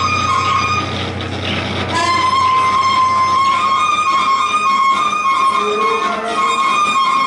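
Live improvised music from an electric guitar, alto saxophone and drums trio: high sustained tones held and pulsing over a low drone, which fades out about two seconds in.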